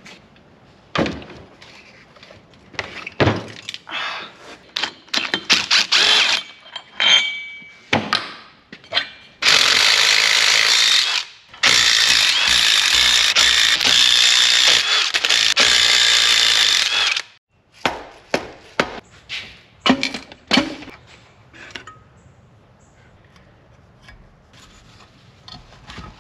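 Cordless DeWalt impact driver with a long socket extension running in two loud rattling runs, a short one about ten seconds in and a longer one of about five seconds after a brief pause, backing out the bolts of a mower engine's bottom cover. Knocks and clanks of tools and metal engine parts come before and after it.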